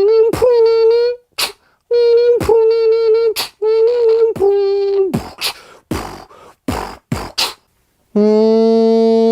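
A man making vocal sound effects in the manner of beatboxing: hummed steady tones broken by sharp mouth clicks, then a run of short hissing bursts. About eight seconds in comes a loud, buzzy held tone.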